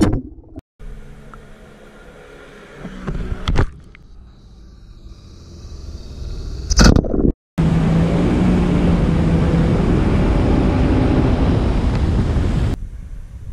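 Jet ski engine running with rushing water, heard across several short spliced clips. It is loudest and steady for about five seconds in the second half, then drops off abruptly.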